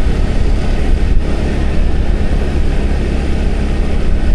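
Motorbike riding noise at a steady cruise: a constant low rumble of wind on the microphone mixed with the engine and tyres running on the road.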